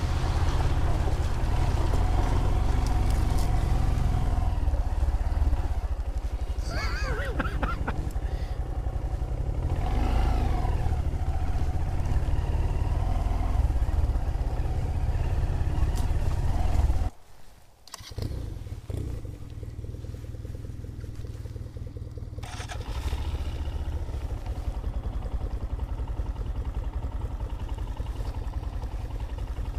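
Motorcycle engine running under way, a steady low rumble. About halfway through the sound drops out abruptly for about a second, then returns quieter and grows louder again a few seconds later.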